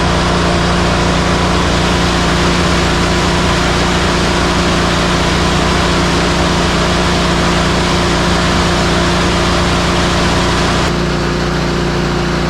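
Ready-mix concrete truck's diesel engine running steadily under a broad hiss; the hiss drops off about eleven seconds in while the engine hum carries on.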